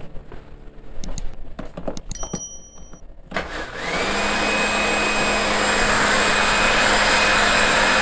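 A few clicks and knocks of parts being handled, then about three seconds in a disassembled electric heat gun's fan motor switches on. It spins up with a rising whine that settles into a steady high whine over a rush of air and a low hum. The fan is running out of its housing, so its air blows out the back.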